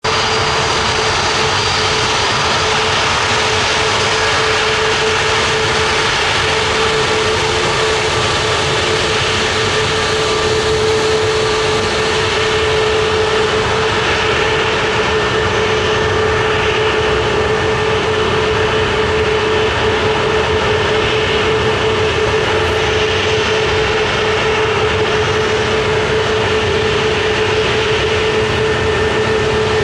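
Airbus A321neo's twin turbofan engines running at idle thrust as the airliner taxis close by: a steady rushing jet noise with a constant whine held on one pitch.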